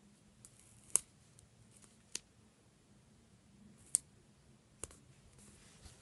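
Scattered sharp clicks and light taps, four of them louder, as stickers are handled and pressed down onto a paper planner page.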